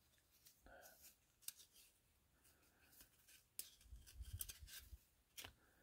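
Faint, soft ticks and slides of baseball trading cards being thumbed off a stack and shuffled between the hands. There are a few isolated strokes, and a small cluster of them about four seconds in.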